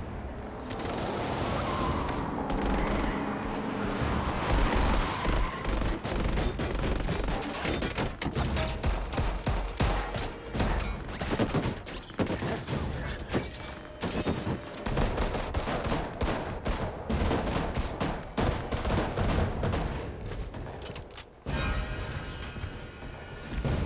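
Rapid bursts of automatic gunfire, many shots in quick succession, over a film score. The shooting is densest through the middle and breaks off a few seconds before the end.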